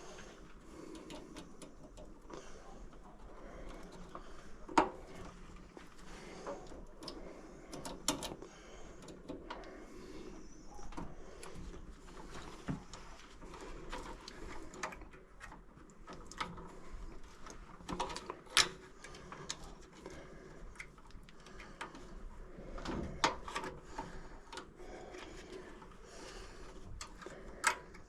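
Scattered light clicks and knocks of hand work on furnace blower motor parts and wiring, with a few sharper taps about 5 s, 8 s, 18 s, 23 s and 27 s in.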